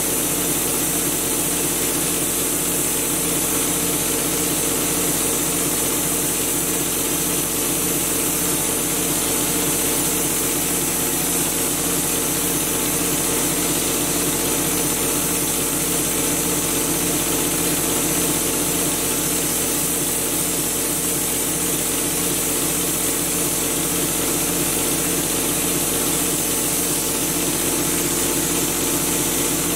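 Drywall texture hopper gun spraying with a steady hiss of compressed air, over the steady, even running of the air compressor that feeds it.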